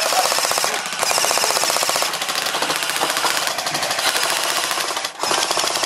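Airsoft M60 support guns firing long full-auto bursts, a rapid, continuous rattle of shots that breaks off briefly about a second in and again near the end.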